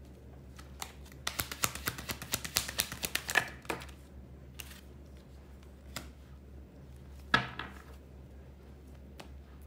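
Tarot cards being shuffled in the hands: a quick flurry of light card clicks for about two and a half seconds, a few stray clicks, then one card laid down sharply on a wooden table about seven seconds in.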